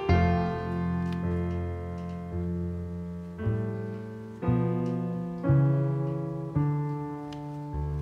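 Background piano music: slow chords struck about once a second, each left to ring and fade.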